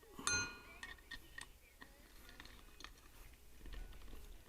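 Small metal hard-drive parts and a tool clinking and tapping during disassembly: one sharp clink with a brief metallic ring near the start, then scattered light clicks.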